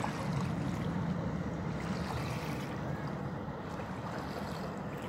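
Lake passenger ship's engines running with a steady low drone as it manoeuvres, over small waves washing on a pebble shore.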